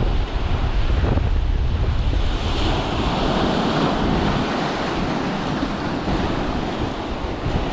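Strong wind buffeting the microphone over the sound of sea waves breaking and washing across boulders; a wave surges in about two and a half seconds in and slowly washes away.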